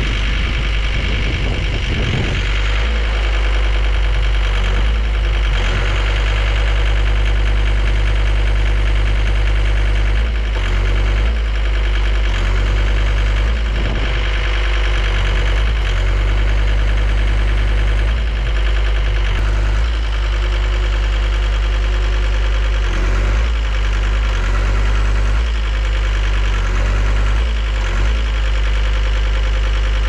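John Deere 326D skid steer's diesel engine running steadily, just back in service after a broken crankshaft repair, with a few brief dips in level.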